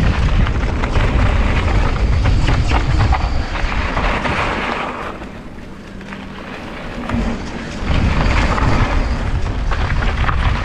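Wind buffeting the microphone over tyres rolling on dirt and gravel during a fast mountain bike descent on singletrack, with scattered clicks and rattles from the bike. The rush eases off for a couple of seconds midway, then comes back.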